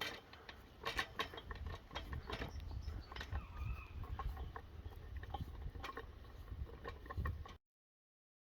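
Hills Hoist clothesline winding mechanism being cranked: a run of irregular clicks and knocks from the worm-drive winder and gears, freshly lubricated and fitted with new washers, over a low rumble of wind on the microphone. The sound cuts off suddenly near the end.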